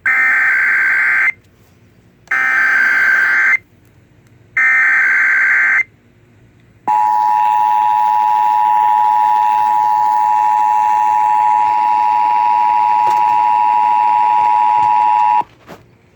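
Emergency Alert System monthly test: three short bursts of SAME header data, a buzzing warble about a second long each with a second's gap between, then the two-tone attention signal held steady for about eight and a half seconds before it cuts off.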